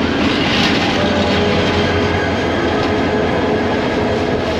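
Passenger train rolling in along the platform: a loud, steady rumble of the coaches and wheels.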